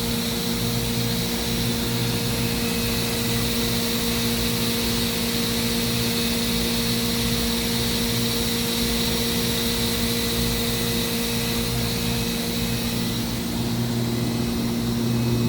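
Spindle of a 2013 Mazak HCN 4000-III horizontal machining center running at its maximum 14,000 RPM under only about 3% load. It makes a steady, even tone with a constant hiss above it.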